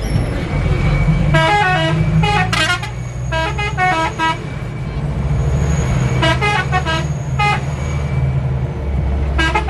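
Bus telolet horn playing quick runs of short musical notes that step in pitch, in four bursts, the last starting near the end. Underneath runs the steady low rumble of the bus's Mitsubishi Canter diesel engine.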